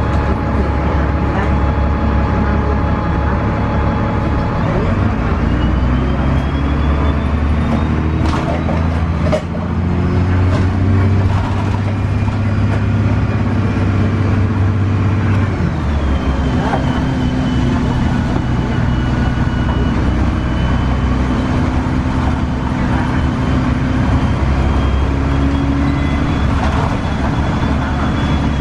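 Inside a 2002 Gillig Advantage transit bus under way: its Cummins ISC inline-six diesel and Voith automatic transmission run steadily, the engine note shifting as the bus speeds up and slows. A thin high whine rises about five seconds in and again a little past the middle, and a few short rattles come around the nine-second mark.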